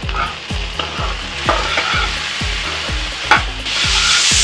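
A spatula scraping and stirring sliced ivy gourd in a hot kadai of oil, about two strokes a second, over the sizzle of frying. The sizzle gets suddenly louder and steadier near the end.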